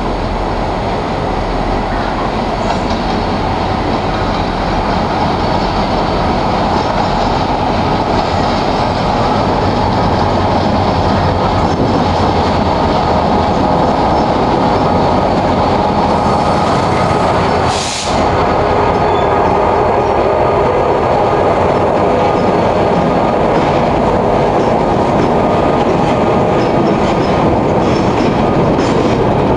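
GT22 diesel-electric locomotive hauling a short train, approaching the station and rolling past close by: a steady loud rumble of engine and wheels on rails. In the last few seconds, as the cars pass close, the wheels give a run of clacks over the rail joints.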